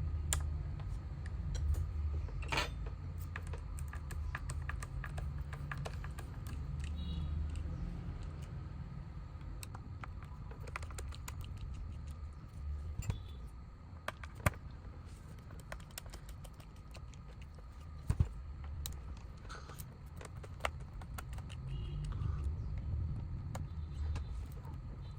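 Scattered small clicks and taps of tools and plastic parts being handled while taking apart a Bluetooth speaker, a few sharper knocks among them, over a low rumble of handling noise.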